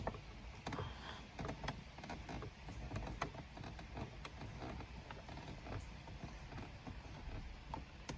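Scattered light clicks and taps of a hand tool working at screws and plastic dashboard trim, with a low hum underneath.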